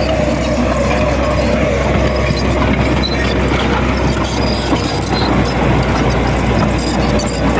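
Heavy road-construction machinery running steadily, a loud engine rumble with a faint whine that fades out about two seconds in.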